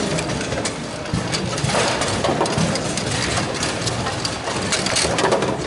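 Table football game: irregular sharp clacks of the ball against the figures and the rods knocking, over a steady low din of a busy tournament hall.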